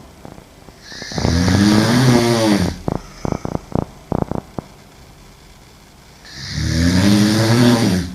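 A woman asleep on her back snoring loudly: two long, rattling inhaled snores about five seconds apart, with a quick run of short pops between them.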